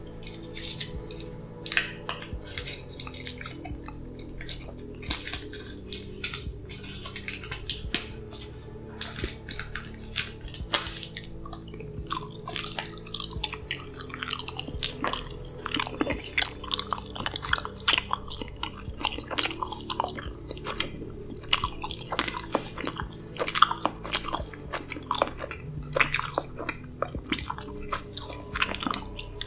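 Close-miked chewing gum: wet, irregular smacking and clicking mouth sounds throughout. Under it runs a low, steady background music drone that changes pitch every ten seconds or so.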